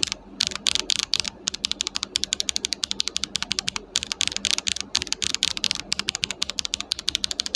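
Fast typing on a mechanical keyboard, an Akko ACR Pro 75 acrylic-case kit fitted with JWK nylon black linear switches and PBT keycaps: a dense, quick run of sharp keystroke clacks, roughly eight to ten a second.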